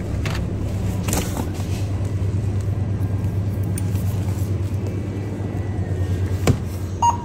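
Steady low electrical hum of a grocery store's refrigerated drink cases, with a couple of light clicks and a short electronic beep near the end.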